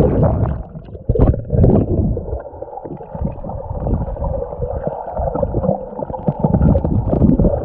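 Wind buffeting the microphone while riding, heard as heavy, muffled, irregular low rumbling with a faint steady hum underneath.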